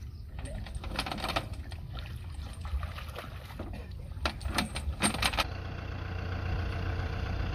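Kubota M6040 diesel tractor engine idling steadily, with sharp metal clanks and rattles twice: about a second in, and again for about a second from four seconds in.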